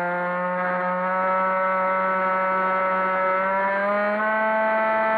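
Multiplex EasyStar 3's brushless electric pusher motor and propeller, heard from the onboard camera, whining steadily in flight. Its pitch rises a little about three and a half seconds in as the throttle opens.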